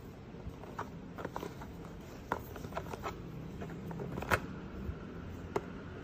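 Handling noise from a plastic-framed vacuum HEPA filter and its plastic holder: scattered light clicks and taps, the sharpest a little past four seconds in, over a steady low hum.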